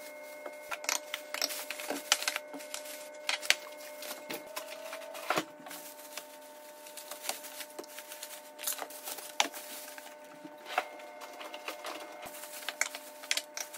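Thin plastic grocery bags rustling and crinkling as items are pulled out and set down, a string of irregular crackles and clicks over a faint steady hum.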